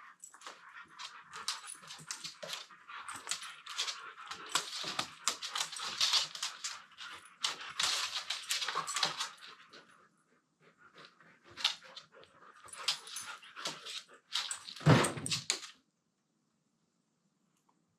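Two Siberian huskies play-wrestling: dense scuffling and rustling with whining play noises, pausing briefly about ten seconds in. A loud thump comes about fifteen seconds in, then it falls quiet.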